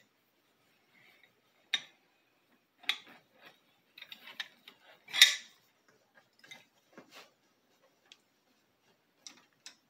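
Scattered clicks and light knocks of a hand tool and rag being handled against an outboard motor's cowling, the loudest about five seconds in.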